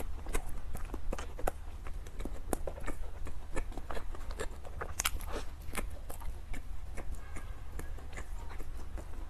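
Close-miked chewing of a soft scallion pork floss bun: irregular wet mouth clicks and smacks, with one sharper click about five seconds in.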